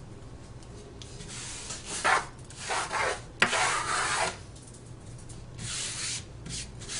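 A person blowing several puffs of breath onto a phone's bare mid-frame, each a breathy hiss under a second long, to clear away leftover glass dust before a new screen goes on.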